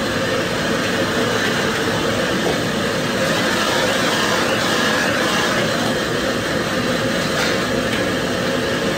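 Restaurant gas wok burner running at high flame, a steady loud rush, with food sizzling in the wok as it is stirred and tossed with a ladle.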